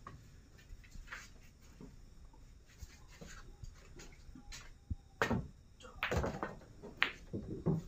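Pool balls clacking: a few sharp clicks about five, six and seven seconds in, over a faint room background.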